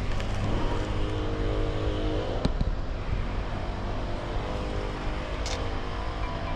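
Car engine running in two spells of about two seconds each, each ending with a sharp click.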